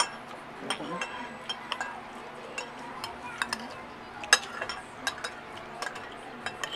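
Cutlery and dishes clinking at a meal table: an irregular scatter of sharp clicks and taps, the loudest a little past four seconds in.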